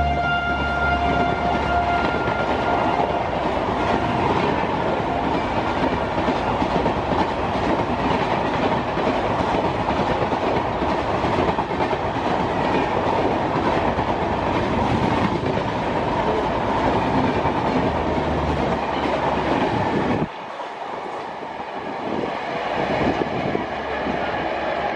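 High-speed express train of passenger coaches passing close by: a loud, steady rush with rapid wheel clatter over the rail joints, and the tail of its horn fading out in the first couple of seconds. About 20 seconds in the sound drops abruptly to a quieter, more distant train rumble.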